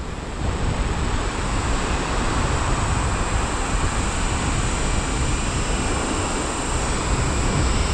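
Strong wind buffeting the microphone, a steady low rumble and rush, over the surf of waves breaking on the beach.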